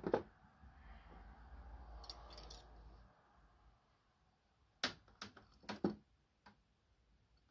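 Metal wrenches clinking as they are handled and set into a magnetic wrench rack. Low rustling handling noise comes first, then a quick run of sharp metallic clinks about five to six seconds in.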